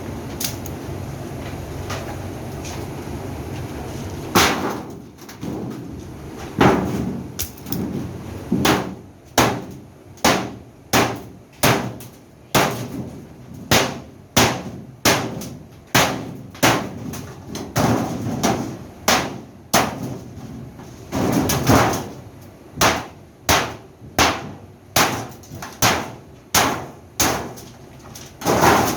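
Repeated hammer blows, roughly one a second, about two dozen sharp strikes in a steady run, after a few seconds of steady noise.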